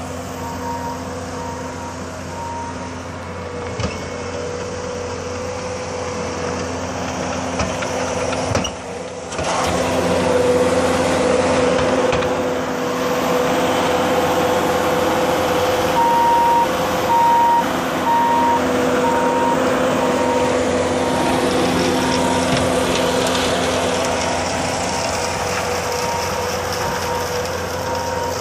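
Bobcat S570 skid-steer loader's diesel engine running steadily under load while its hydraulic sweeper broom brushes the asphalt; it gets louder about ten seconds in. A backup alarm beeps regularly at the start and again from about the middle onward, a bit under once a second.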